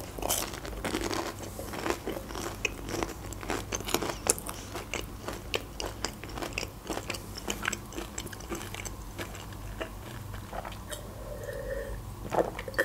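Close-miked chewing of a breaded, fried cheese bite dipped in cheese sauce: many small crisp crunches. Near the end comes a sip of drink from a glass.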